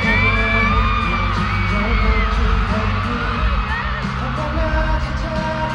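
K-pop song performed live over a concert sound system: singing over heavy, steady bass.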